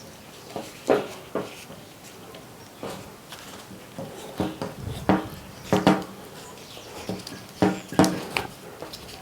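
Irregular knocks and clunks, some with a brief ringing, of heavy cable being handled and wound onto a microwave-oven transformer core for a DIY spot welder's secondary winding.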